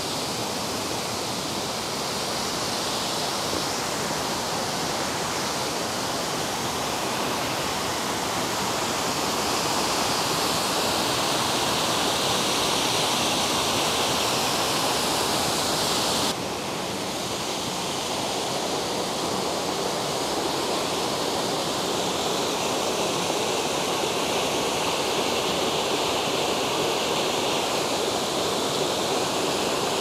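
Rushing water of a brook's waterfalls and cascades, a steady full hiss from the brook running high after days of rain. The sound changes abruptly a little past halfway, as a different cascade takes over.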